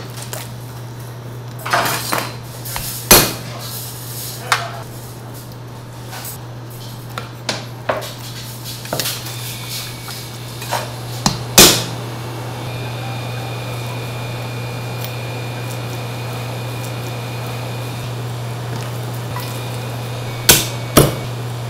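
Knife and duck carcass knocking and tapping on a thick wooden chopping block while a whole duck is deboned by hand: scattered sharp knocks, the loudest about three seconds in, around the middle, and twice near the end, over a steady low hum.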